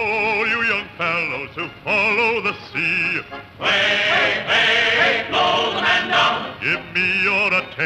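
Choir of male voices singing with heavy vibrato over orchestral accompaniment, in sung phrases. It is heard from a 1940s 35mm optical soundtrack printed onto 16mm film.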